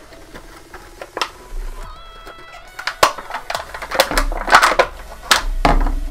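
Clear plastic clamshell packaging crinkling and crackling as it is handled and a speaker is pulled out of it, loudest and busiest in the second half.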